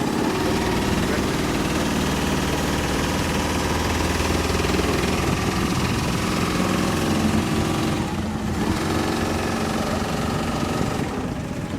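MDI AirPod's compressed-air engine running steadily, with a brief dip about eight seconds in.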